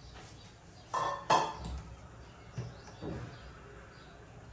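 A small stainless-steel bowl set down on a stone countertop: two quick ringing metal clinks about a second in, followed by fainter knocks of the mixer jar and its lid being handled.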